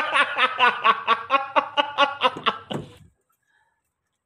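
A man laughing in a long, even run of rapid 'ha-ha' pulses, about four a second, that cuts off suddenly about three seconds in.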